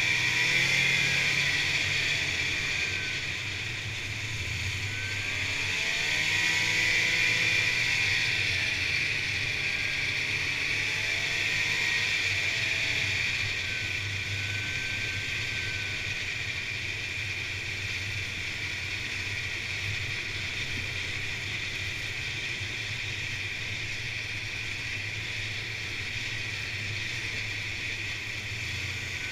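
Snowmobile engine running at trail speed, heard from the rider's seat with steady wind and track noise over it. The engine pitch rises and falls over the first dozen seconds, then holds steady and a little quieter.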